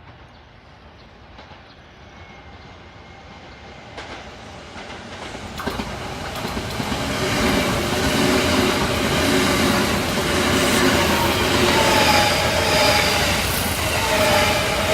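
Kintetsu electric train approaching and running past, faint at first, then swelling from about four seconds in to a loud, steady pass with clicks of the wheels over the rail joints and a whining tone over the rumble.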